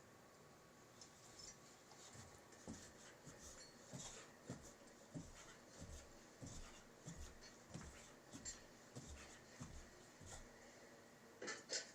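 Boxer dog making faint, low rhythmic puffs about twice a second, with a few light clicks; a sharper double click comes near the end.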